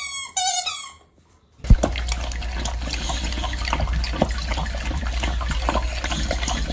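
A short high-pitched whine, then about one and a half seconds in a loud steady rush of running, splashing water with many small crackles and a low rumble.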